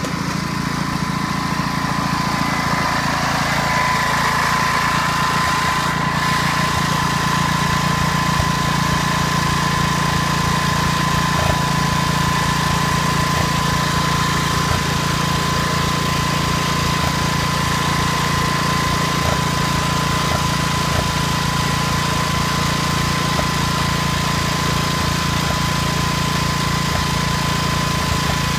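Wheel Horse garden tractor's engine running steadily, with a thin steady whine over it that grows stronger about three seconds in.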